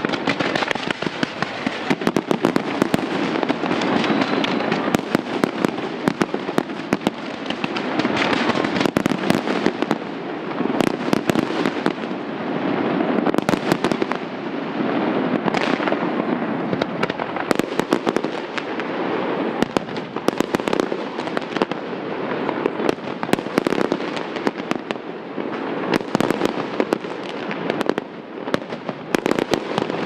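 Fireworks display: aerial shells bursting in a dense, continuous barrage, many sharp bangs over a steady crackle.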